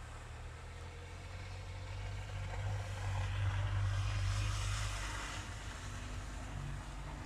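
A motor vehicle passing: a low engine hum with a swell of road noise that rises to a peak about halfway through, then fades.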